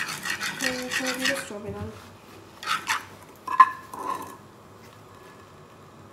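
Tissue paper rubbing and crinkling against a wet strawberry in quick scrubbing strokes for about a second and a half, then a few scattered rustles and a sharp knock about three and a half seconds in.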